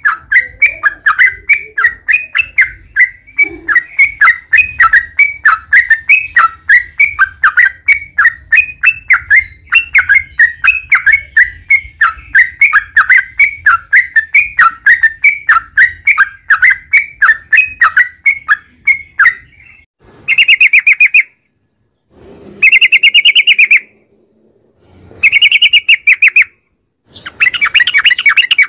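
Yellow-vented bulbul (trucukan) singing a long, fast run of chattering notes, about three to four a second. This is the continuous 'ropel' song used as a lure to make other trucukan answer. About two-thirds of the way through the run stops, and four loud, dense bursts of song follow, each a little over a second long, with silent gaps between them.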